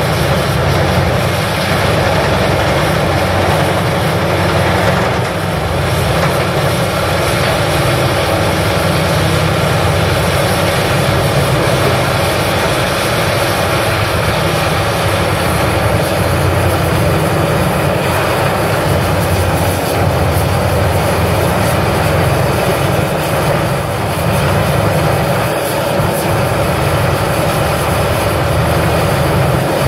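Bandit Beast 3680 horizontal grinder running under load as it grinds tree stumps, a loud, steady diesel drone mixed with the rough noise of wood being shredded. The excavator feeding it works alongside.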